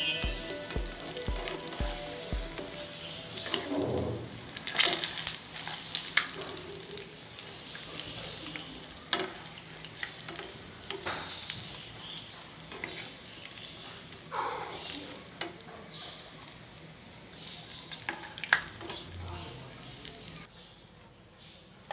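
Fish kebab patties sizzling in hot oil in a non-stick frying pan, with scattered knocks and scrapes as a wire-mesh skimmer and a spatula lift them out of the pan. The sizzling dies down near the end.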